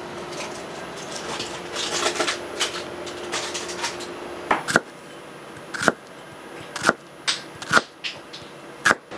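Knife chopping onions on a cutting board. Irregular knife strokes come first, then about five sharp single knocks roughly a second apart in the second half.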